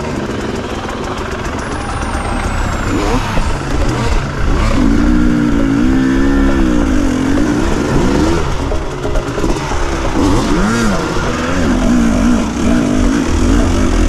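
Enduro dirt bike engines revving up and down on a rocky forest trail climb, the pitch rising and falling repeatedly with the throttle, over a steady low rumble.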